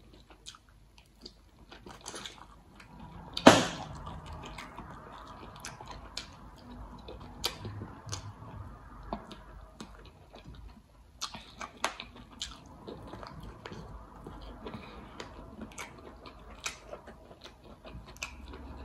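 Close-miked chewing and wet mouth smacks of a person eating slimy okra and egusi soup by hand, with many small clicks. One loud, sharp mouth sound comes about three and a half seconds in.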